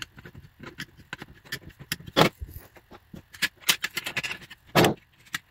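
Small metal screws and a bracket clicking and knocking against an aluminium telescope tripod leg as they are fitted by hand: a run of sharp clicks, with two louder knocks about two seconds in and near the end.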